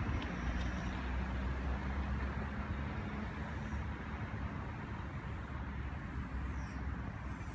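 Steady low rumble of road traffic, with a faint steady hum underneath.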